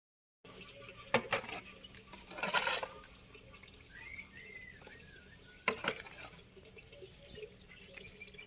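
A steel shovel scooping wet cattle dung and tipping it into a metal wheelbarrow. There are sharp knocks of the blade against the barrow about a second in and again near six seconds, and a wet scrape of the load around two and a half seconds.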